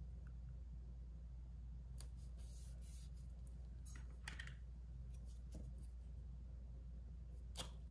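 Faint paper handling: stickers being peeled from a sheet and pressed onto a planner page, with soft rustles and a few light clicks, the sharpest near the end, over a steady low hum.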